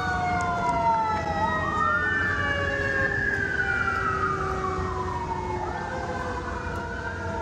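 An emergency vehicle siren wails in slow rises and falls. It drops in pitch at first, climbs from about a second and a half in, then falls away slowly and starts rising again near the end. A steady low rumble runs underneath.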